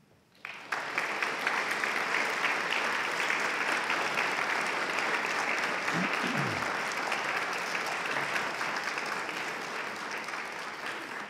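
Audience applauding: dense, steady clapping that starts about half a second in and fades out near the end.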